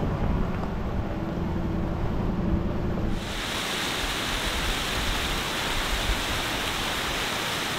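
A vehicle engine rumbling low. About three seconds in it cuts abruptly to a steady rushing noise.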